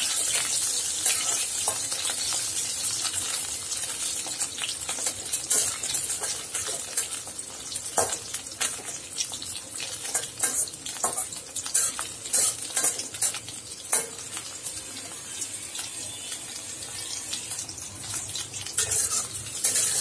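Batter-coated prawns sizzling steadily as they fry in hot oil in a steel kadai, with a steel spatula scraping and tapping against the pan again and again as the pieces are turned.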